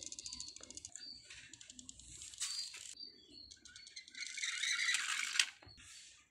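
Plastic toy vehicles rolled by hand across a concrete floor: a fast clicking rattle from the wheels, with short high chirps. About four seconds in, the rolling grows to a louder rush that ends in a sharp knock.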